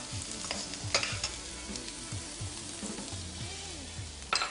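Finely chopped onions, just added to hot oil, frying with a soft sizzle in a kadai while a metal slotted spatula stirs them. The spatula clicks against the pan about a second in and more loudly near the end.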